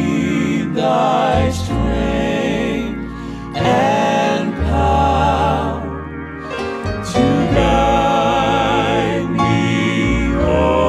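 Slow gospel music: sustained notes with a wavering vibrato, the opening of the song before its first words.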